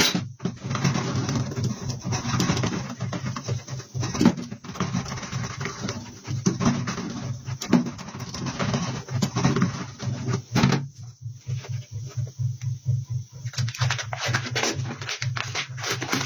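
Rubbing and scraping against the inner liner of a car tire during a repair to patch it from inside, in repeated bursts over a steady low hum. The scraping stops for a few seconds past the middle, then picks up again near the end.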